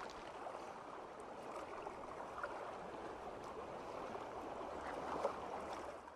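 Steady rushing, bubbling water sound effect, fading out near the end.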